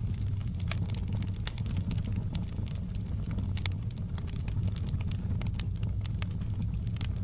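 Fireplace fire crackling, with frequent sharp, irregular pops and snaps over a steady low rumble of the flames.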